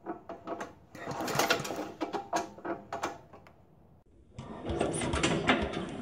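Small engine's recoil starter cord pulled, the engine turning over freely with its spark plug out in a fast mechanical rattle, during a spark check. After a short lull about three and a half seconds in, a second stretch of cranking noise begins, duller in tone.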